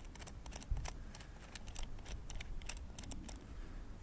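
Small irregular clicks and taps of a screwdriver and small metal carburetor parts being worked, as the main jet is unscrewed from the carburetor and lifted out.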